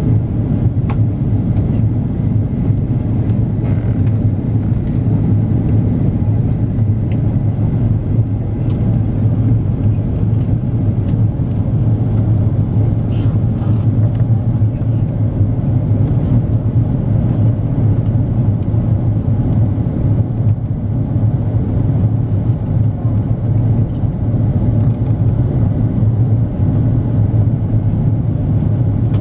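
Steady cabin noise inside an Airbus A330-300 in flight: engine and airflow drone with a strong low hum.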